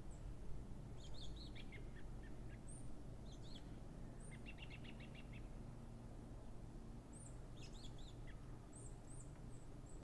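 Small songbirds calling in short chirping phrases, with a quick trill of rapid notes near the middle and thin high-pitched calls near the end, over a low, steady background rumble.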